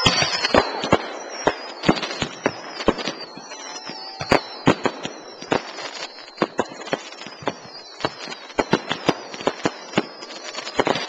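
Aerial fireworks going off in a rapid, irregular string of bangs and crackles, with high whistles that fall in pitch.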